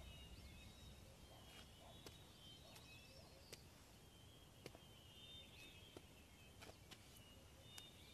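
Near silence: faint open-air ambience with a few faint bird chirps and scattered small clicks.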